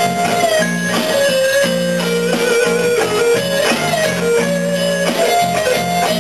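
Small live band playing an instrumental passage of a slow soul song: guitar and bass under a held, stepping lead melody, with steady strummed strokes. The recording is loud and of poor sound quality.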